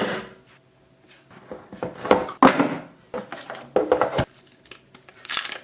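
Phone retail box and its packaging being handled and opened: irregular taps, knocks and short rustles of cardboard and plastic.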